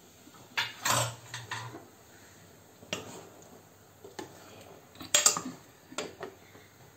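Steel ladle clinking and scraping against the side of a stainless steel pot while stirring a thin curry, in a string of irregular clinks that are loudest about a second in and again around five seconds in.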